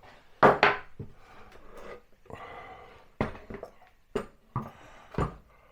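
Flat-pack wooden kitchen wall cabinet being handled and swung round on the bench: a loud bump about half a second in, some scraping, then three sharp knocks about a second apart.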